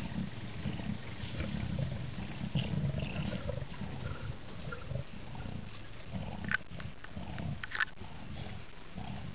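African lions growling low and continuously while feeding together on a kill, with two sharp clicks in the second half.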